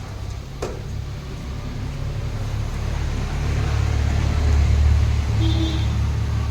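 Low rumble of a car wheel spinning up on a wheel-balancing machine, growing louder to a peak and easing off near the end, with a click just after the start and a brief high tone near the end.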